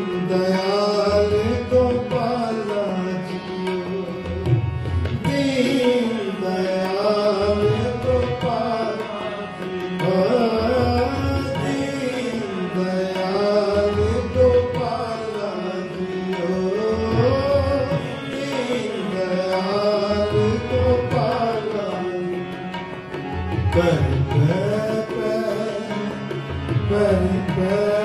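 Kirtan music: a drawn-out, wavering sung melody over harmonium, with a tabla pair keeping the rhythm and deep bass-drum strokes coming again and again.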